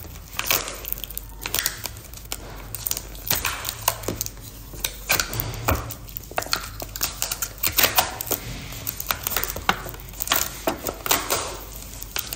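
Clear plastic takeaway food boxes being handled and opened: irregular clicks, taps and crinkling of the thin plastic lids.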